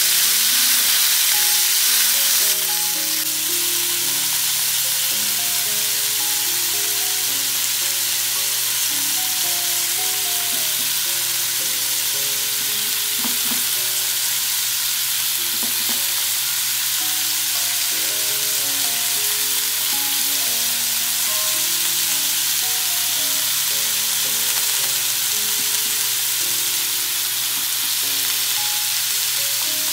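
Steady sizzling of New York strip steaks searing in oil on an electric Blackstone griddle set to 500°F, with a soft melody of background music underneath.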